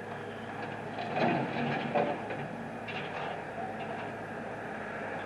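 Small bulldozer's engine running steadily, with a few knocks and scrapes about a second in and again near three seconds as debris is dumped.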